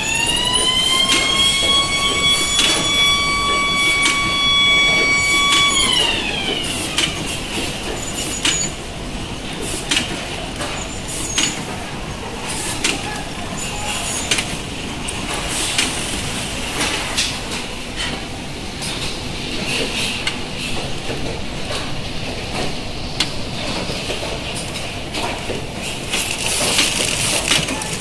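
Biscuit packaging line with a thermal transfer overprinter running: a motor whine rises in pitch at the start, holds steady about six seconds, then winds down. Under it the machinery keeps up irregular clicking and clatter, with a steady hiss that grows louder near the end.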